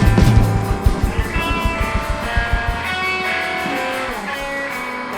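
Live rock band with electric guitar and drums. The drums pound fast until about three seconds in, then stop, leaving guitar chords ringing out, with a downward slide in pitch near the end.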